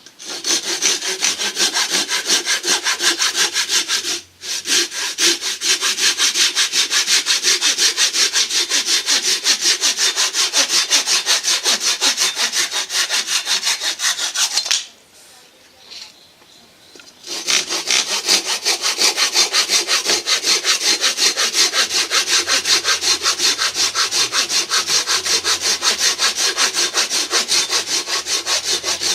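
Hand saw cutting through wood with quick, even back-and-forth strokes, stopping briefly twice.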